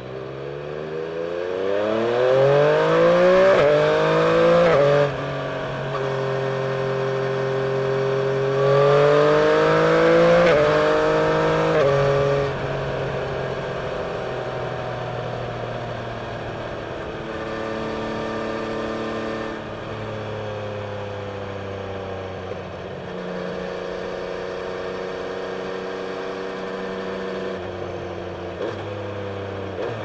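Yamaha Tracer 900's inline three-cylinder engine through a Scorpion exhaust, pulling hard with the revs climbing, then dropping sharply at quickshifted upshifts about five and about twelve seconds in. After that it runs at a steadier part-throttle cruise with small rises and falls in pitch.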